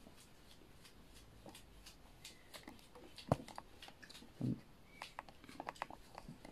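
Faint crunching and clicking of a crispy dosa being bitten and chewed, with a sharp click a little after three seconds in and a brief low thump about a second later.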